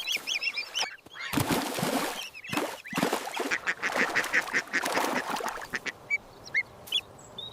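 Several ducks quacking over one another, with a few brief high peeps near the end.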